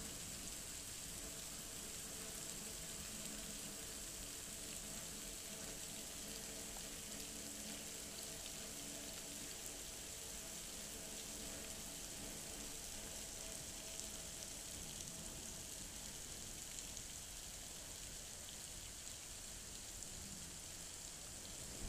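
Steady hiss of rain pouring down during a thunderstorm. A faint low hum underneath fades out about two-thirds of the way through.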